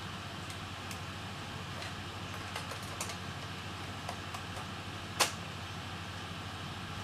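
Small clicks and taps of a laptop's plastic case parts being handled and fitted together during reassembly, with one sharper click about five seconds in, over a steady low hum.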